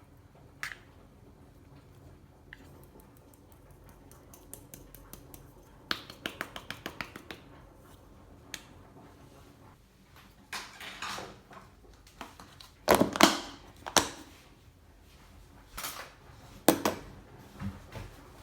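Kitchen handling sounds: scattered clicks and knocks of utensils and containers, with a quick run of ticks about six seconds in and louder knocks near the middle and near the end.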